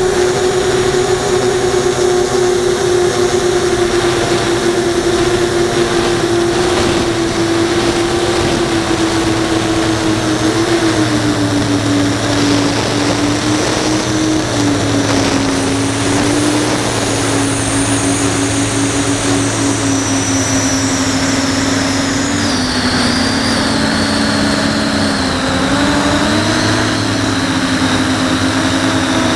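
Onboard sound of a 5-inch FPV quadcopter in flight, heard from the camera on the drone: a steady propeller and motor whine that drifts slowly lower in pitch and wavers with throttle changes near the end, over a rush of air noise.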